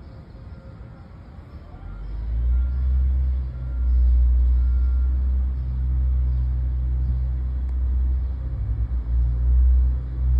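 Low engine rumble of road-construction machinery. It dips for the first couple of seconds, then swells back and holds steady with small rises and falls.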